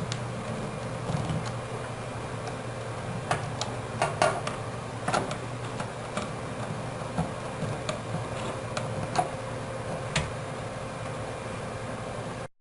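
Scattered small clicks and taps as power wires are fitted into a power box's terminal slots, over a steady low hum. The sound cuts off abruptly near the end.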